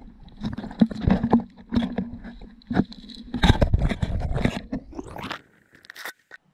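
Handling noise on an action camera: fingers rub, scrape and knock on the housing in an irregular run of scratches and clicks that stops about five seconds in, with a couple of last clicks just before the end.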